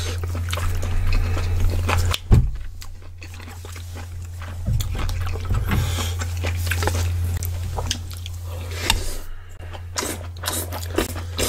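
Close-miked chewing and biting of bibimbap and kimchi stew: wet smacks and clicks of eating, over a steady low hum.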